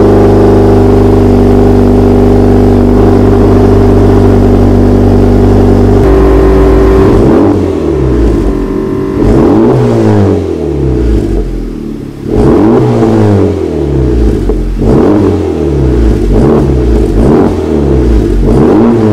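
Honda Civic Type R FL5's turbocharged 2.0-litre four-cylinder through a freshly installed AWE Touring cat-back exhaust: running steadily for about six seconds, then revved up and let fall back several times in a row.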